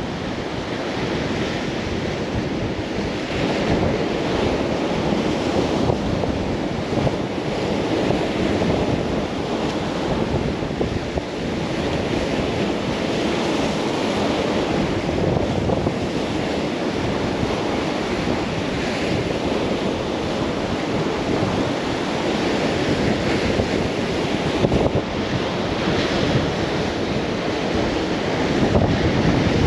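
Sea surf breaking over rocks on a rocky shore: a continuous wash of waves that swells every several seconds as each wave breaks.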